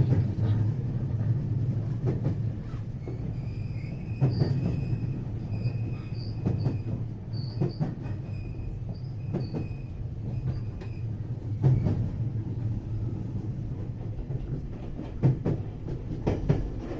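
521 series electric train heard from inside its motor car while running: a steady low rumble with wheels clacking over rail joints, and an on-and-off high wheel squeal from about 3 to 11 seconds in. Sharper clacks stand out near the end.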